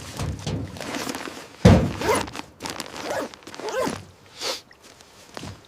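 A few dull thuds and knocks, the loudest nearly two seconds in, with short pitched sounds between them.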